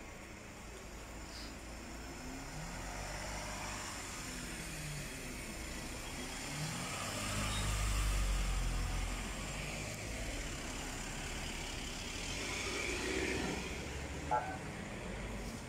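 A car engine passing close by on the road, growing louder to a peak about halfway through and then fading. A short click near the end.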